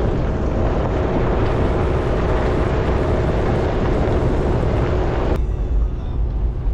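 1999 Jeep Wrangler TJ's straight-six running on the move, with loud steady road and wind noise; the noisier part cuts off suddenly about five seconds in, leaving a deep rumble.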